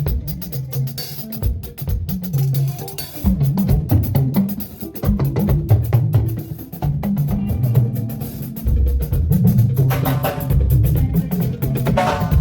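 Band music from a sound check: drums and hand percussion hitting steadily over a moving bass line.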